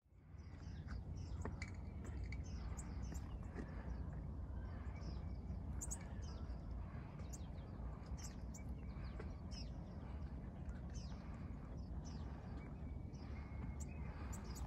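Wind rumbling low and steady on the microphone, with small birds chirping over it in many short, high calls.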